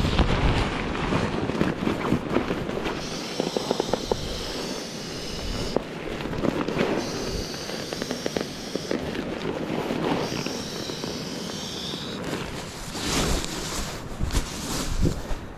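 Nylon pump sack being rolled and squeezed to push air through the valve of an inflatable sleeping pad: crinkly rustling and crackling of the fabric, with three spells of rushing air.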